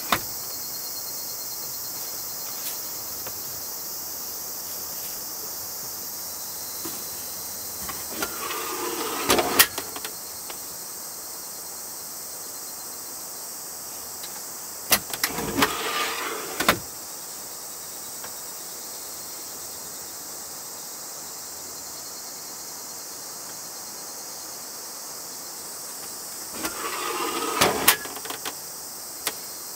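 Hinged wooden fold-down table being worked: three bouts of wood sliding and scraping, each with sharp knocks, about a third of the way in, in the middle, and near the end. A steady high insect chirring runs underneath.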